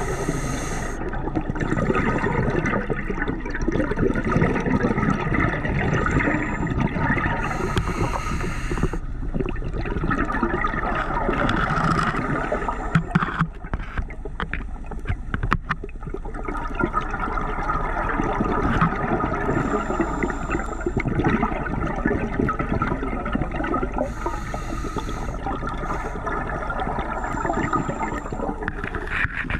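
Underwater noise picked up by a diver's camera: a continuous rush and gurgle of water, with a few short hissing bursts of scuba exhaust bubbles every several seconds.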